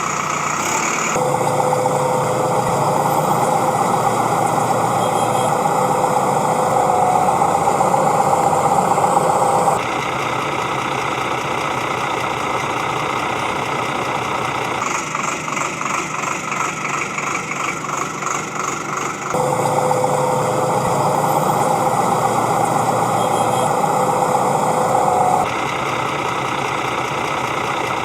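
A motor running steadily with a hum, changing abruptly in tone several times. It takes on a fast rhythmic chatter for a few seconds in the middle.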